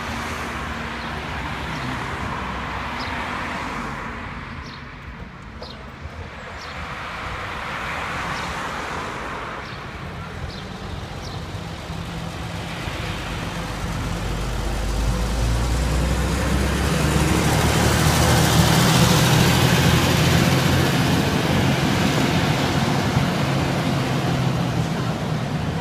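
Ikarus 250 coach's diesel engine running as the coach drives past, with a low steady engine note and tyre noise that build to the loudest point about two-thirds of the way through and then ease off. Lighter passing-car noise comes before it.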